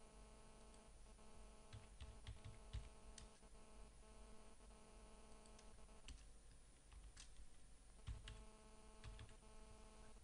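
Faint computer keyboard typing: scattered keystrokes in two short runs, over a steady low electrical hum.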